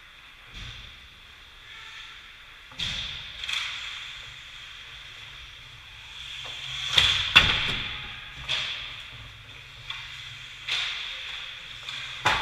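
Ice hockey play: skates scraping the ice under a series of sharp knocks of sticks and puck, the loudest a pair of cracks about seven seconds in.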